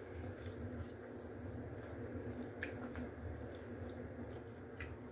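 Faint soft squishing of fried chicken being pulled apart by gloved hands and chewed, with a few small clicks, over a steady low hum.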